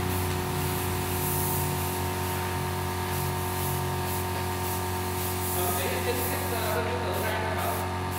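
Aerosol spray-paint can hissing in repeated short bursts as paint is sprayed onto a statue, with a steady low hum underneath.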